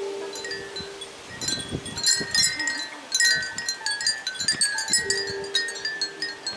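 Many Japanese wind bells (furin) jingling in the wind, with bursts of overlapping high rings that thicken in the middle and thin out near the end. Low gusty rumbles come with the busiest jingling, and a steady hum sits under the start and the end.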